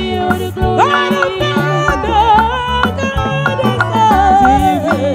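Live band music with women singing into microphones; the lead voice holds wavering notes with vibrato over steady bass notes and a drum beat.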